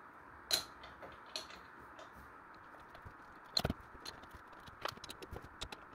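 Scattered light clicks and knocks of gaming-chair parts being handled during assembly, the sharpest about three and a half seconds in and a quick run of small ticks near the end, over a faint steady hiss.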